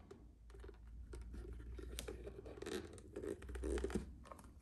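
Handling noise from an old leather revolver holster: scratching and rubbing with scattered small clicks, busiest about two to four seconds in.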